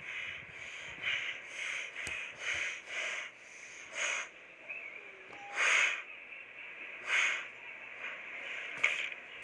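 A child huffing and snorting breath through the nose with a hand clamped over his mouth: a string of short, irregular puffs of air.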